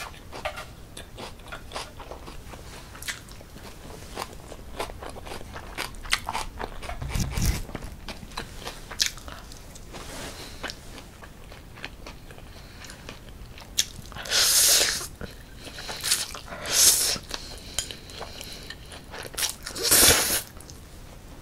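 Close-miked eating of spicy cold noodles: chewing with many small wet mouth clicks, then in the last third several loud slurps of noodles, the loudest about a second long.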